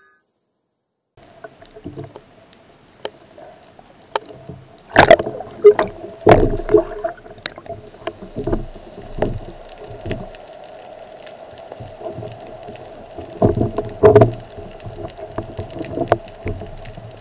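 Underwater sound picked up by a camera in its housing during a spearfishing dive: a steady hum with scattered sharp knocks and bubbling gurgles as the diver handles his speargun and catch. The knocks are loudest and come in clusters around five to seven seconds in and again around fourteen seconds.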